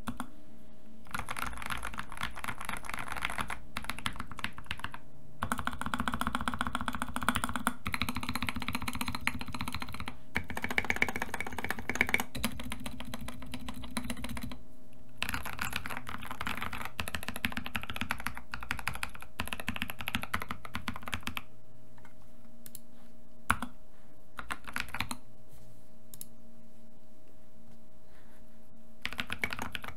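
Typing on a modded GK68XS mechanical keyboard with C3 Kiwi tactile switches, their top and bottom housings lubed with Krytox 205g0 and fitted with Deskeys switch films: fast runs of keystrokes with short breaks. About two-thirds of the way in, the typing thins to a few single keystrokes, then picks up again near the end.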